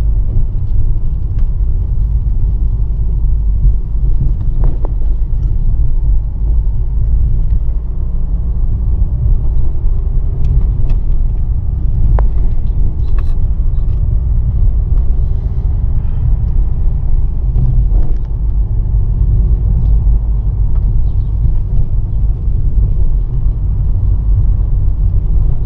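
Car driving on a rain-wet road, heard from inside the cabin: a steady low rumble of tyres and engine, with a few faint scattered clicks and knocks.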